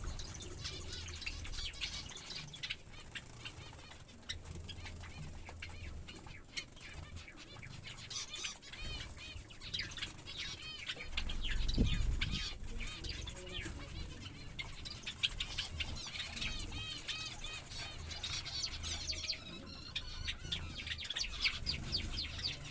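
Small finches and Java sparrows chirping busily in quick high cheeps, with wing flutters as they bathe, and a low rumble about halfway through.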